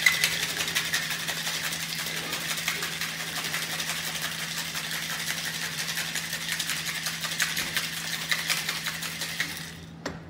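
Ice rattling inside a metal cocktail shaker shaken hard for about ten seconds, then stopping near the end: the wet shake of an egg-white sour with ice, after an earlier dry shake without ice.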